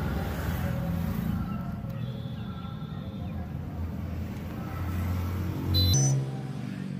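Car engine running steadily with a low hum. Near the end there is a brief, louder, high-pitched sound.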